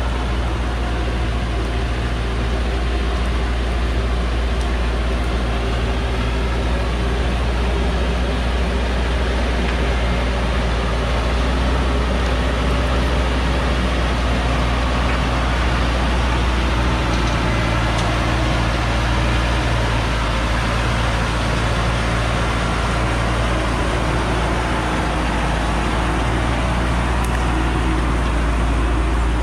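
Diesel engine of a Hoa Mai truck loaded with acacia logs, running steadily as the truck crawls along a steep, muddy hillside track close by.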